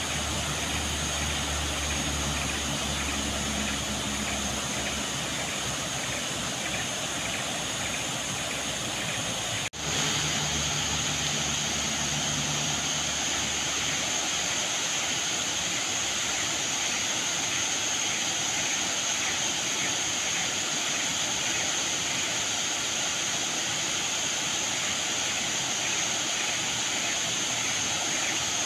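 Waterfall pouring into a pool: a steady, dense rush of falling water, briefly dipping about ten seconds in.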